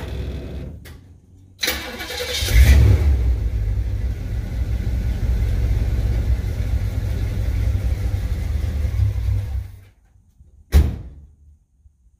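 1974 Chevrolet Impala's engine cranking briefly and catching with a rev about two seconds in. It then runs steadily for about seven seconds and is shut off. A single sharp knock follows about a second later.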